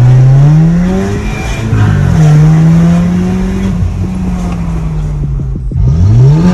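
Audi A5's 2.0-litre turbocharged four-cylinder engine with a tuned exhaust, accelerating through the gears, heard from inside the cabin. The pitch climbs, drops at a gearshift about two seconds in, climbs and holds, eases off, then rises sharply again near the end.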